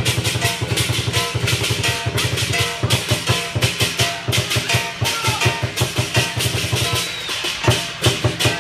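Chinese dragon dance percussion: a fast, steady drum beat of about five strokes a second with crashing cymbals. The drumming thins out about seven seconds in.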